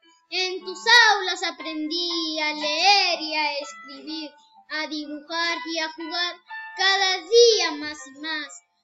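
A boy singing alone, unaccompanied, in phrases with short silent breaks between them.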